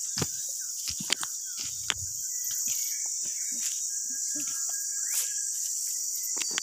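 Dense, steady, high-pitched insect chorus of forest crickets, with scattered sharp clicks and snaps and a few brief whistled tones in the middle.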